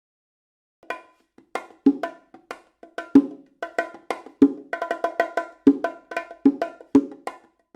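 Sharp, hollow-sounding percussive knocks in a quick, uneven rhythm, loud strokes mixed with softer ones several times a second, starting about a second in.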